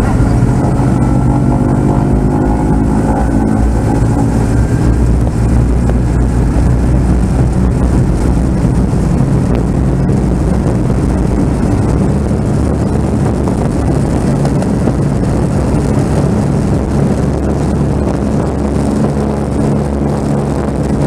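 Douglas DC-3's radial engine running steadily at taxi power, heard from inside the cabin as a loud, even low-pitched note with a few pitch glides in the first seconds.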